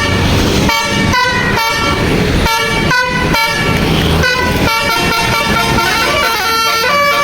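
Indonesian bus 'telolet' basuri horn, a multi-tone musical horn, playing a quick melody of short stepped notes that change to longer held notes near the end, over the bus's running engine.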